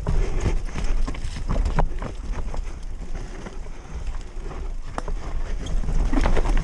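Mountain bike riding noise on a GoPro: wind buffeting the microphone and a low rumble of tyres over rough trail, with scattered knocks and rattles from the bike.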